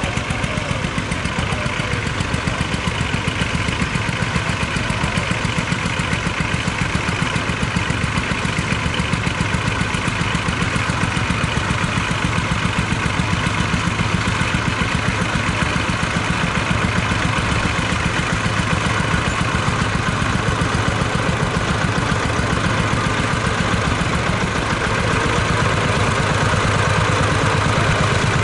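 Small vintage tractor engine running steadily with a fast, even firing beat while pulling a mounted plough through stubble, getting a little louder near the end.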